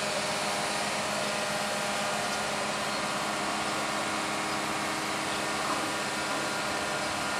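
Mobile crane's diesel engine running at steady revs while its boom holds a tower-crane section on the hook: an even, unchanging engine hum.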